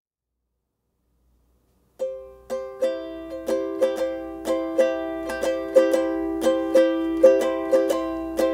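Silence for about two seconds, then a ukulele strummed in a steady rhythm, about two to three strums a second.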